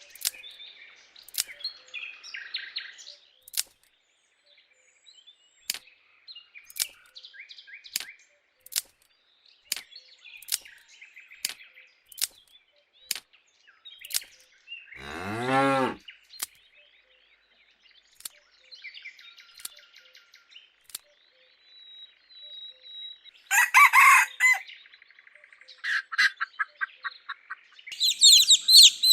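Chickens: chirping and clucking calls scattered through, with sharp clicks in between. There is a louder, longer call about halfway through and another about three-quarters of the way in.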